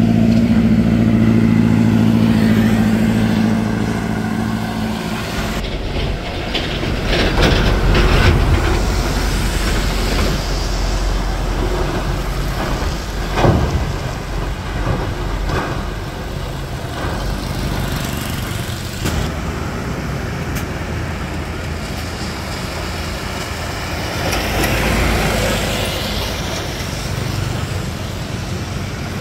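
Heavy trucks on a wet road. A truck engine runs with a steady low drone for the first few seconds. Then comes the rushing noise of passing trucks and their tyres on wet pavement, swelling about eight seconds in and again near the end, with one sharp knock about halfway.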